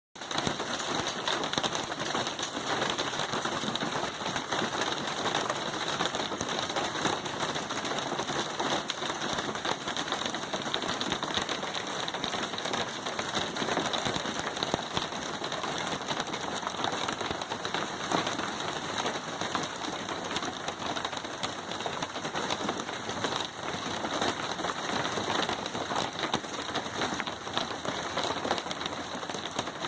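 Hail falling steadily: a dense, even patter of many small impacts on hard surfaces.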